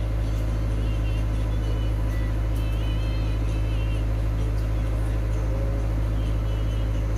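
A steady low hum, with faint high-pitched warbling chirps now and then.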